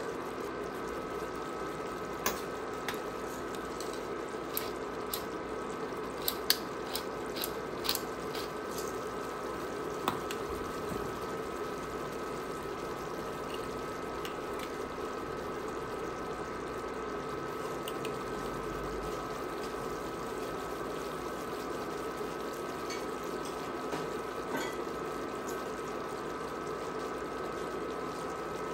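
Thick creamy sauce bubbling and simmering in a cast-iron skillet, with a steady hiss and a faint steady hum under it. Scattered sharp clicks come in the first ten seconds or so.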